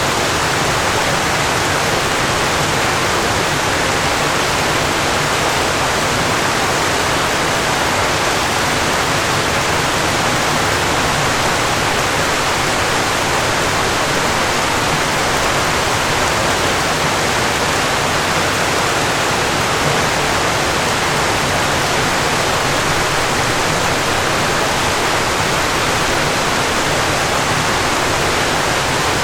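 Falling water pouring steadily in a constant dense rush, like a waterfall, with no changes.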